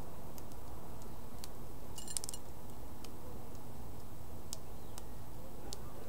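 Sharp, irregular clicks of a small finch's bill picking and cracking seeds in a terracotta seed dish, with a quick rattle of several clicks about two seconds in, over a steady low background rumble.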